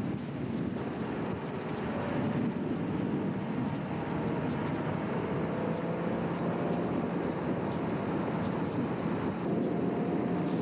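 A tow boat's engine running steadily at speed under a rush of water spray and wind buffeting the microphone.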